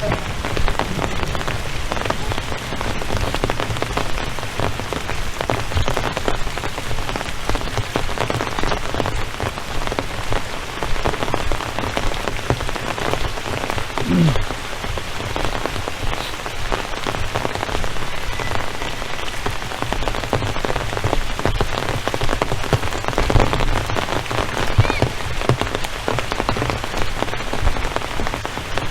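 Rain falling steadily, a dense spray of drop hits with no pause.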